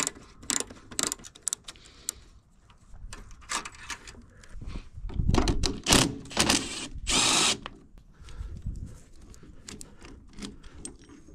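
Hand tools and parts being handled while working on a go-kart: scattered clicks, clinks and knocks, with a short rushing burst of noise about seven seconds in.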